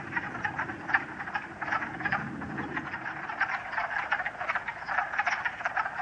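Chorus of many wood frogs calling together, a dense, unbroken run of short, duck-like clucking croaks overlapping one another.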